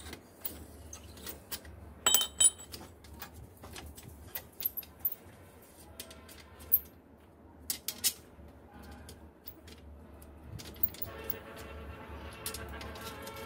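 Metal clinks and knocks from hand tools working on an old bicycle's rusted parts, including one ringing metallic strike about two seconds in, over a steady low hum. Near the end a humming tone with several pitches comes in and grows.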